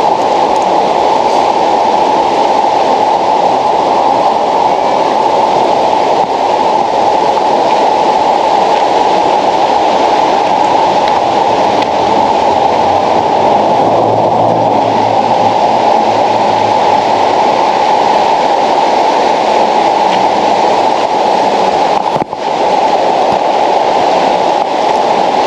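Fast-flowing river water rushing loudly and steadily, with a brief dip about 22 seconds in.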